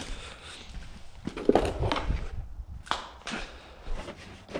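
Large hard-plastic interior trim panel of a Ford Festiva knocking and scraping as it is handled and pushed into place against the car's body, a few separate clatters.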